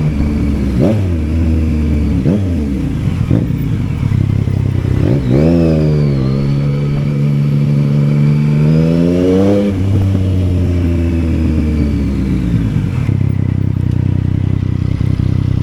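Yamaha Tracer 900's three-cylinder engine revving under a rider's throttle. Several quick blips rise and fall in the first few seconds, then the engine pulls in one long run that climbs slowly in pitch for about four seconds. It drops away just before the tenth second and runs steady and lower to the end.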